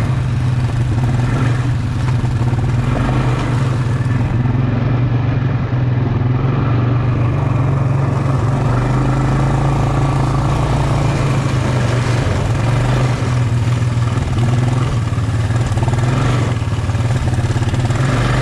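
Quad bike engine running steadily under way, a constant hum with no big changes in revs.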